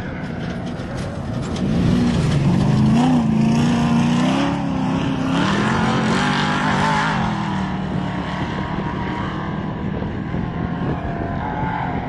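Off-road race vehicle's engine passing at speed, growing loud about two seconds in, its pitch rising and dropping as the throttle is worked, with a hiss at its loudest. It then settles to a steadier note as it pulls away.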